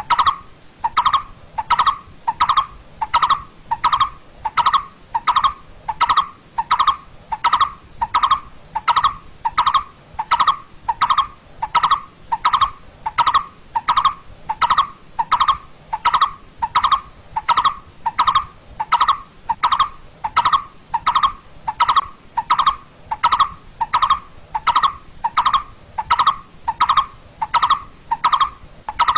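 Coppersmith barbet calling: a steady, unbroken series of short, hollow 'tuk' notes, about two a second, all at one pitch.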